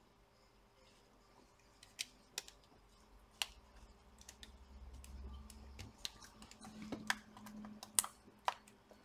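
Scattered small, sharp plastic clicks and taps, about seven in all at irregular intervals, as fingers press ribbon cables into a laptop motherboard's connectors and close the latches.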